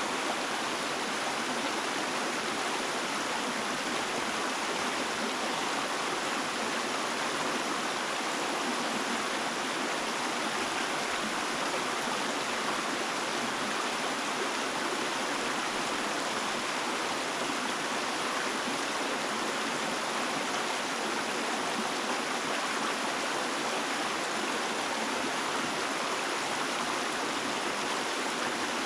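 Running water flowing steadily, an even rushing with no breaks or changes.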